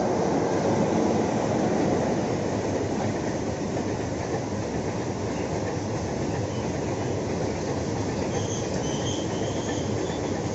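Long heavy freight train rolling past at speed: a steady rumble and clatter of wagon wheels over the rails, a little louder in the first two seconds as a locomotive goes by. A faint high wheel squeal comes in about eight seconds in.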